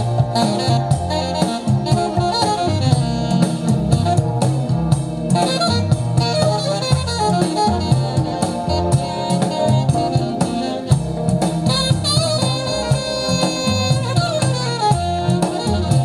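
Recorded music played back through a pair of large hi-fi floor loudspeakers driven by the NFS225 prototype amplifier, as a listening test of its output module.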